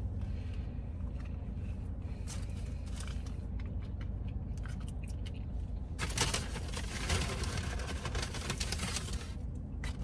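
Food packaging crinkling and rustling as it is handled, with a few small clicks, then a louder burst of crinkling about six seconds in that lasts around three seconds, over a steady low rumble inside the car.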